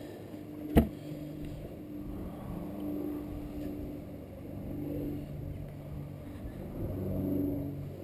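Low, steady engine hum in the background, swelling and fading, with one sharp knock about a second in.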